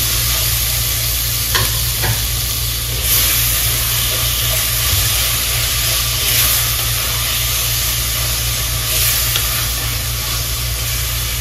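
Tomatoes, green chillies and shallots sizzling in hot oil in a clay pot while a wooden spoon stirs them. The sizzle swells every few seconds as the spoon turns the food, with a couple of light spoon knocks on the pot about two seconds in.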